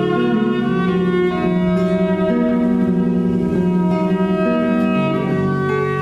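Violin played with long bowed notes that slide from one pitch to the next, over a softly played acoustic guitar.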